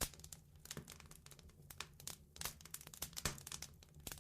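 Faint crackling of a fireplace fire: irregular snaps and pops over a low steady hum.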